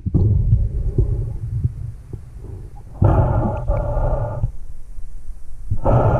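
A scuba diver's regulator exhaust: two bursts of exhaled bubbles about three seconds apart, one about three seconds in and one starting near the end. Underneath is a steady low rumble of water moving against the camera housing.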